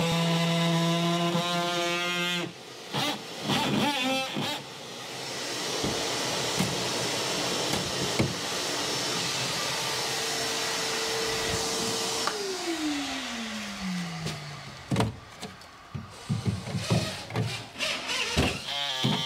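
A handheld rotary drywall cut-out tool runs and cuts through drywall, then is switched off, its whine falling steadily in pitch as it spins down. A few knocks and rattles follow as the cut-out drywall piece is worked free.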